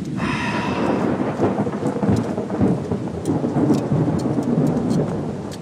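Heavy rain with a rolling rumble of thunder, starting suddenly and continuing throughout.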